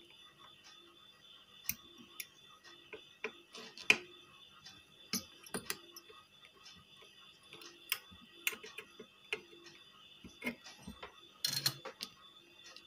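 Irregular small clicks and taps of a soldering iron tip and fingers working a power MOSFET off an inverter circuit board, with a short cluster of clicks near the end as the part comes free. A faint steady high tone sounds underneath.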